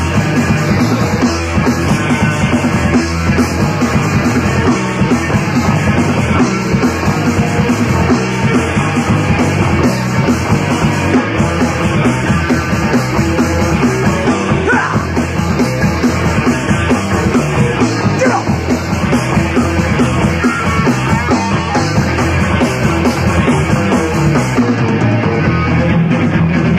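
Punk rock band playing loud and steady through an instrumental stretch of the song, with no sung words.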